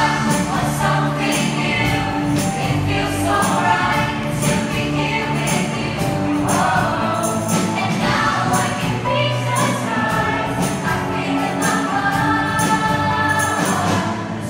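A large group singing together in a stage musical number, over pop music with a steady beat.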